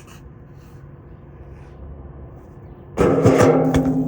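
A BMX bike hits a sheet-metal roof about three seconds in: a sudden loud metallic clatter with several sharp knocks, then a low ringing hum from the metal that carries on.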